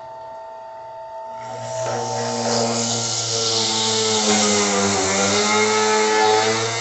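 Electric citrus juicer running as lime halves are pressed onto its spinning reamer: a motor hum with a gritty grinding of fruit against the cone, starting about a second and a half in. The pitch sags briefly about five seconds in.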